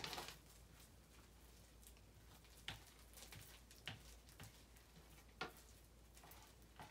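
Near silence, broken by a few faint, short sticky clicks and squelches from glitter slime being stretched and kneaded by hand.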